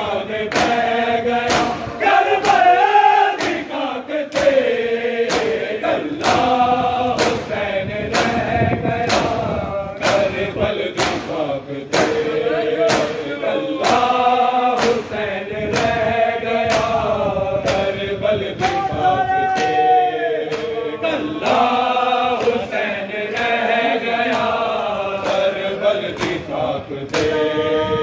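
A group of men chanting a noha, a Shia mourning lament, in unison behind lead reciters. Under the chant runs a steady, even beat of open hands slapping bare chests together in matam.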